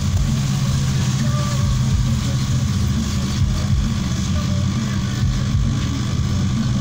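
A steady low engine hum, like a motor idling.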